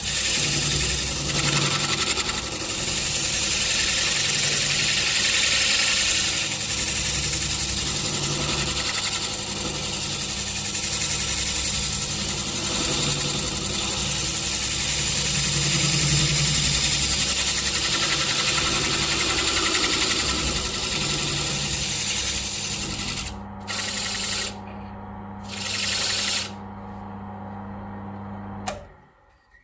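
Electric bench grinder's motor running with a steady mains hum under a loud grinding hiss. Near the end the hiss breaks off a few times while the motor keeps humming, then the sound stops.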